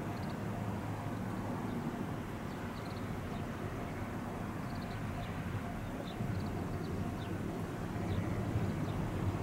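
Steady low outdoor rumble that grows a little louder about six seconds in and again near the end, with faint short high chirps scattered through.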